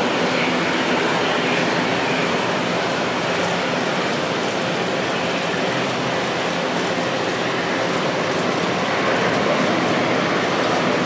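The two Pratt & Whitney PW1133G geared turbofans of an Airbus A321neo at takeoff thrust, through the takeoff roll and lift-off: a steady rushing jet noise with a faint low hum, growing a little louder near the end.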